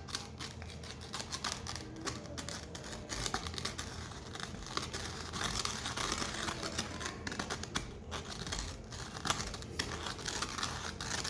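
Stirring sticky slime in a bowl with a stir stick: irregular clicks, taps and crackles of the stick against the bowl and the tacky slime, with the slime sticking to the bowl's sides.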